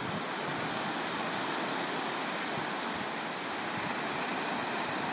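Ocean surf breaking and washing up the beach, a steady hiss.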